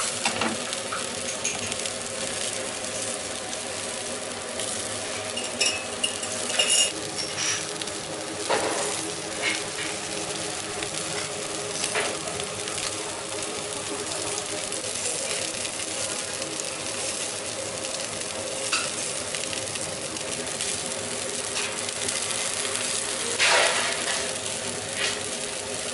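Sparrows and quail sizzling on a hot grill grate, over a steady hum. A few sharp clinks of dishes or utensils come now and then, the loudest a little before the end.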